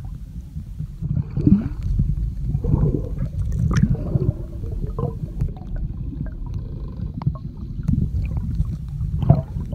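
Underwater sound with the microphone submerged: a muffled, uneven low rumble of moving water with gurgling bubbles and a few short clicks, surging louder about a second and a half in and again near the end.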